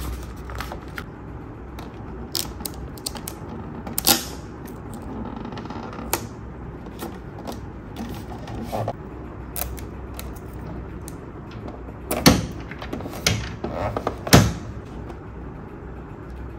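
Hands handling a hard plastic Paw Patrol toy vehicle while peeling and pressing stickers onto it: scattered small clicks, taps and rubbing of plastic and sticker paper, with two louder knocks near the end, over a faint steady low hum.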